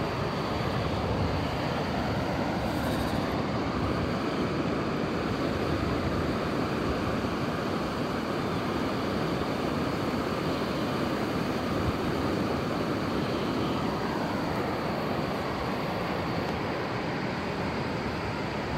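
Steady rushing noise of surf and wind at the shore, with no distinct events.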